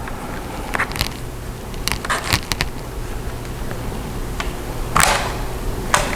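Plastic keyboard trim cover of a Dell Latitude E5450 laptop being pried off, its clips popping loose in a scattered series of sharp clicks and small cracks, the loudest about five seconds in.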